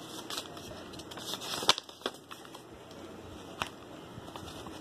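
Scissors cutting craft-foam petals: a few sharp snips, the loudest a little under two seconds in.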